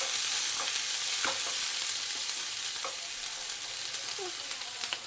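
Chopped onion, ginger and chillies sizzling in hot mustard oil in a pan while being stirred, with a few light spoon clicks. The sizzle slowly dies down.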